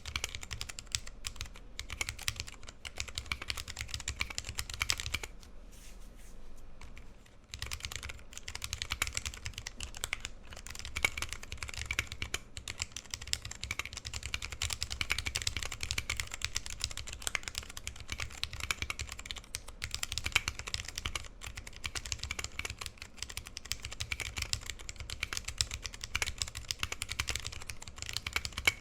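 Fast, continuous typing on a TX60 60% mechanical keyboard with lubed vintage brown Alps switches and PBT keycaps: a dense patter of keystrokes, with a short pause about six seconds in.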